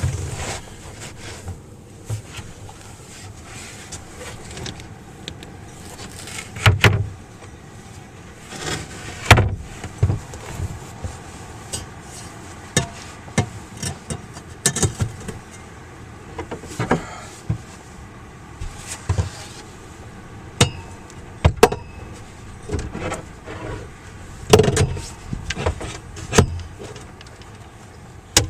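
Irregular knocks, clicks and thumps of things being handled and moved about, some with a heavy bass thud, over a low steady rumble.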